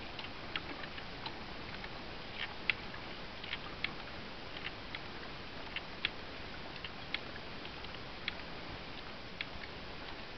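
MSR MiniWorks EX hand-pump water filter being pumped, its handle and valves giving sharp irregular clicks about once or twice a second, over the steady rush of a stream.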